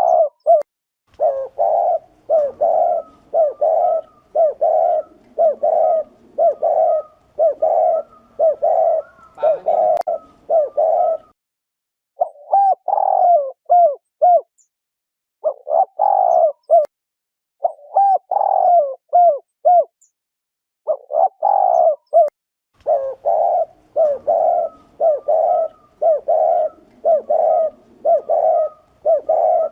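Spotted dove cooing its short, repeated 'gù' courtship and territorial coo, about one note a second, with two brief pauses. It is the call used to stir up male doves and to lure them to traps.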